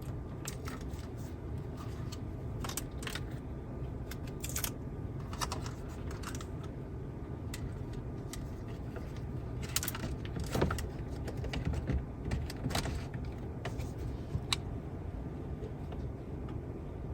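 Scattered light clicks and small rattles of parts being handled, over a steady low hum.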